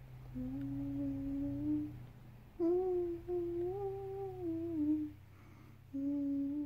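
A voice humming a slow wordless melody in three held phrases, the middle one pitched higher, over a faint steady low hum.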